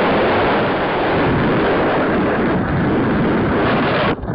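Loud rushing wind noise over the onboard camera microphone of an RC foam plane in a low, rolling dive, cutting out sharply for a moment near the end.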